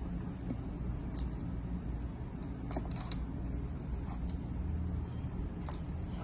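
Scattered small clicks and taps of a teaspoon against the baking soda container and bottle as baking soda is spooned in, with a cluster of several clicks about three seconds in, over a low steady background hum.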